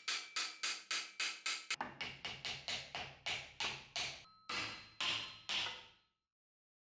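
Mallet blows on the end of a beech axe handle, driving the steel bardiche head down onto it: a run of sharp knocks about four a second, with a faint metallic ring, then three slower blows. The blows stop abruptly about six seconds in.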